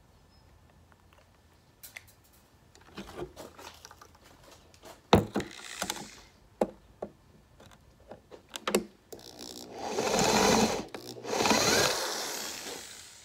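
Clicks and knocks of parts being handled on a bench, then two runs of a small electric drill about two seconds each near the end, drilling out the rivets of an aircraft strobe power supply's case.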